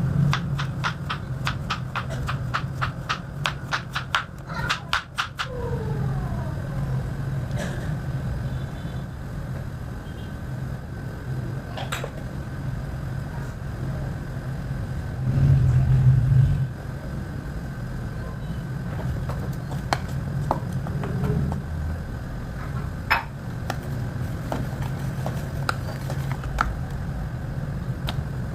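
Kitchen food-prep sounds over a steady low hum: a fast, even run of taps for the first five seconds or so, then scattered clicks and clinks of utensils. The hum briefly swells louder about halfway through.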